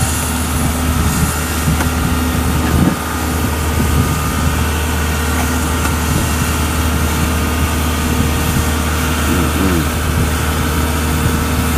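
Kubota DC70 tracked combine harvester's diesel engine running steadily as the machine creeps down off the bank onto a portable bridge over a canal.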